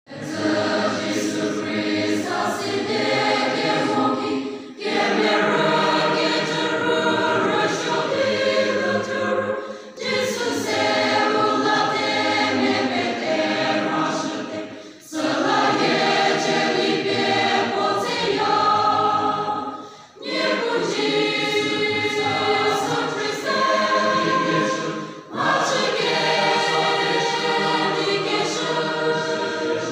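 A large mixed choir singing a hymn together, in phrases of about five seconds with a short break for breath between each.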